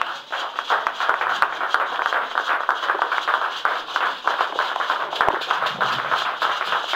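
Congregation clapping and applauding, a dense crowd of hand claps.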